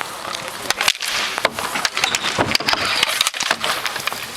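Hockey game in play: sticks and puck clacking in a quick, irregular run of sharp knocks over a steady wash of skates on the rink surface.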